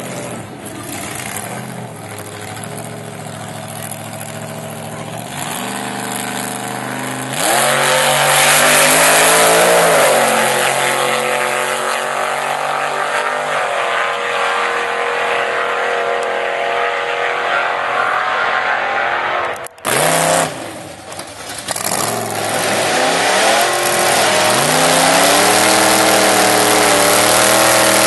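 A Ford Ranger drag truck's supercharged small-block Chevy V8 (8-71 blower) revving and running hard at full throttle down the drag strip. Its note rises and dips, and it gets much louder about seven seconds in. After a sudden break a little past two-thirds through, the engine builds up again and revs high during a smoky burnout.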